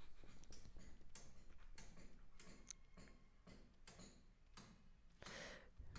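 Near silence with a series of faint, soft ticks or clicks spread through it.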